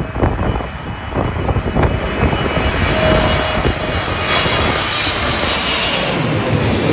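Boeing 777 airliner's twin jet engines passing low overhead on landing approach. A rumble with a high whine grows louder, loudest in the second half.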